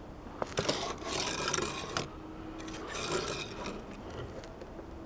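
Hot Wheels die-cast toy car rolling and skidding across a wooden tabletop as it is pushed to drift: a soft scraping rush of its small wheels on the wood. One long stretch lasts about a second and a half and a shorter one comes about three seconds in, with a couple of light clicks about half a second in.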